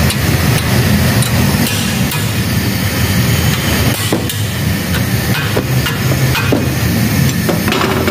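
Several sharp metallic knocks as a wrench levers a Toyota Avanza's worn steering tie rod, which has play in it, over a steady low machine hum.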